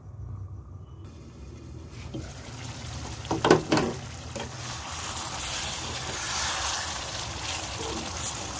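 Thick kohlrabi curry bubbling hard in an open pan, a steady crackling hiss of boiling gravy, with a brief clatter of utensils against the pan about three and a half seconds in as it starts to be stirred.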